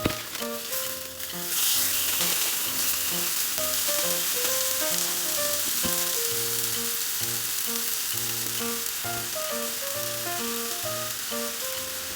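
Food sizzling as it fries in a hot pan, starting suddenly about a second and a half in and then holding steady. Light background music plays throughout.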